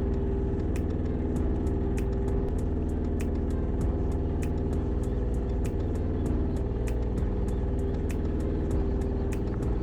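Boat engine idling with a steady hum, with light, sharp clicks about twice a second over it.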